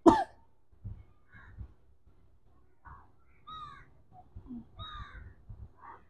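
Crows cawing several times, the loudest call right at the start and fainter arched caws further on, over faint low knocks.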